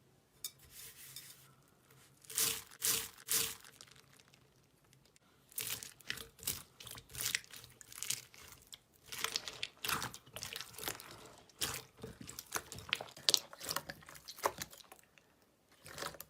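Slime being squeezed and pressed by hand, making irregular crackling, crinkling pops and squelches, fainter in the first couple of seconds.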